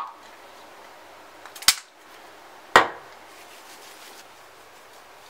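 Two sharp clacks about a second apart as a shaving gel can is handled at a bathroom sink; the first is preceded by a few small clicks and the second trails off briefly.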